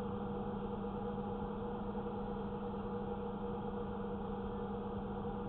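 Steady low hum with an even hiss inside a parked vehicle's cab, unchanging throughout.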